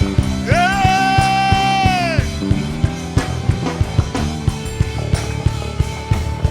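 Live gospel worship band playing an upbeat groove with a steady drum-kit beat; about half a second in, one long note is held for under two seconds over the band.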